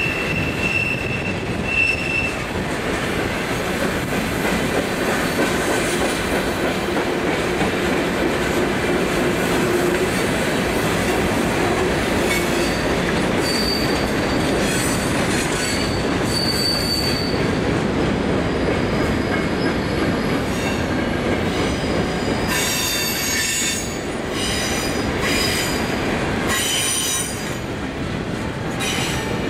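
Freight cars rolling past: a steady rumble of steel wheels on rail, with brief high-pitched wheel squeals. Over the last several seconds, as the final boxcar passes, a run of sharp clicks and knocks from the wheels.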